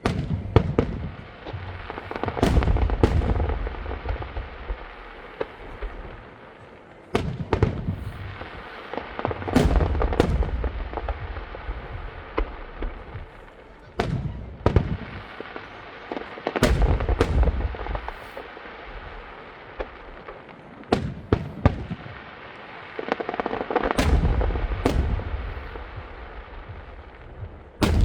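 Aerial fireworks display: shells bursting with sharp bangs every few seconds, some in quick pairs, each followed by a long low rumble that dies away.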